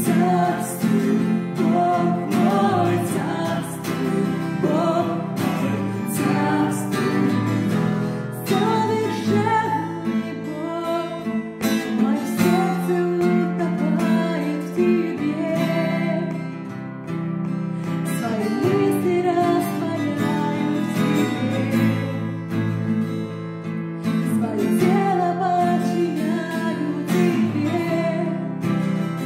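Acoustic guitar strummed as accompaniment to a woman singing a Russian-language worship song.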